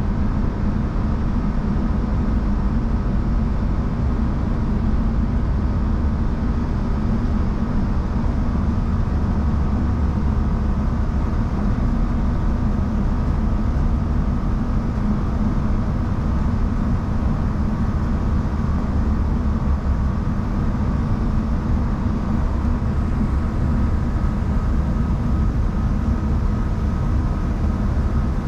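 Diesel passenger train running at steady speed, heard from inside the carriage: an even low rumble from the wheels and running gear, with a faint steady whine above it.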